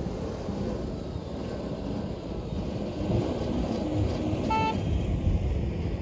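Jeep Wrangler's engine running under load as it drives off to take up a kinetic rope and tug a stuck hatchback out of the mud, a little louder from about three seconds in. A short high beep sounds once about four and a half seconds in.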